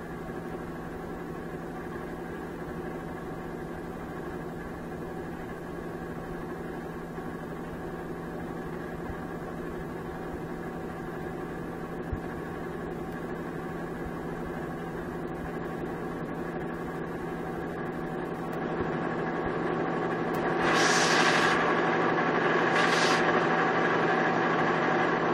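Steady machine hum made of several even tones. It grows louder in the last few seconds, with two short swells about two seconds apart near the end.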